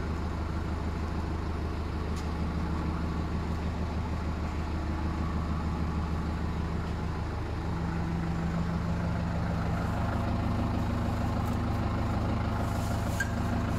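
Vehicle engine idling steadily, with a slight change in pitch and a little louder from about eight seconds in.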